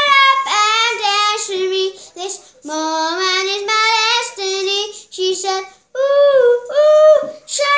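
A young girl singing alone, without accompaniment, in long held notes that waver in pitch, phrase after phrase with short breaths between.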